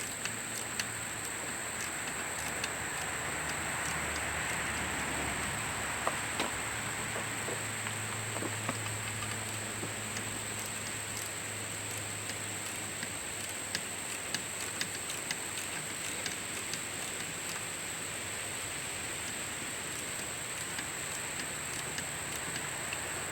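Scattered light clicks and taps of a wrench working on the belt tensioner's locking bolt, over a steady background hiss.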